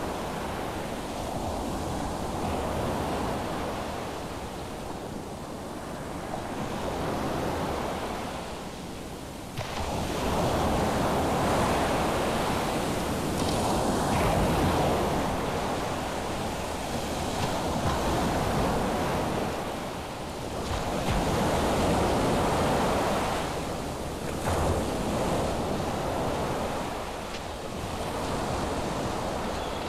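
Ocean surf breaking on a beach: a steady rush of waves that swells and ebbs every few seconds. It gets suddenly louder about a third of the way in.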